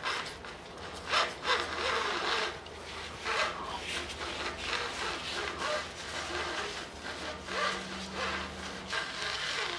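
Screen fabric rubbing and scraping in irregular strokes as it is fed and pulled onto a retractable screen reel, with a low steady hum underneath.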